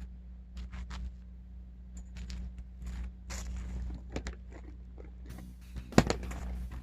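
Scattered crunching and scuffing handling noises, with one sharp knock about six seconds in, over a low steady hum.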